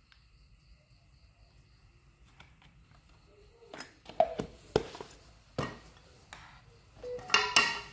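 Metal tools and chainsaw parts being handled on the workbench: after a few quiet seconds, a string of sharp clinks and knocks, then a louder ringing metallic clatter near the end.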